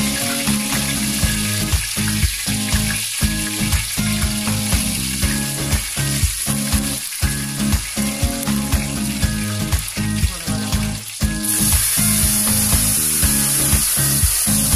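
Hot oil sizzling in a steel cooking pot, over background music with a steady beat. About three-quarters of the way through, a louder, higher hiss sets in as jaggery water is poured into the hot oil.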